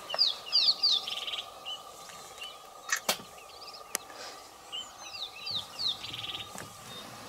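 Wild birds singing: a phrase of three quick downward-sliding whistles near the start and again about five seconds in, with buzzy trills between. A sharp click comes about three seconds in and another about a second later.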